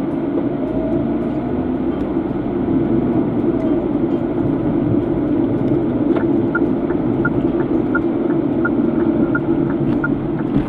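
A car running on the road, heard from inside the cabin: a steady rumble of engine and tyres. About six seconds in, the turn-signal relay starts ticking at about three clicks a second as the car signals for a turn.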